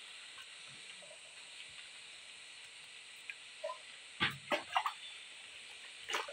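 Quiet wet rubbing of a baby monkey being soaped in a basin of water. A little after four seconds in comes a short cluster of splashes and knocks as a steel cup is dipped for water.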